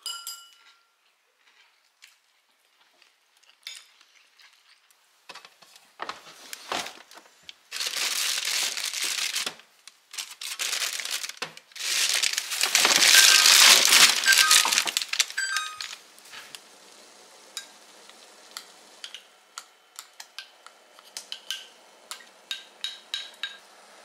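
Plastic bags and plastic-wrapped vegetables crinkling and rustling as they are handled in a refrigerator crisper drawer, in several loud stretches. Later comes a faint steady hum with light clicks and clinks.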